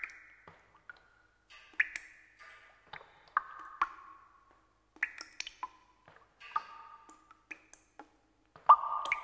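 Soundtrack of an animated end card: sparse percussive pings and knocks, each a sharp hit with a brief ringing tone, about a dozen over several seconds, the loudest near the end.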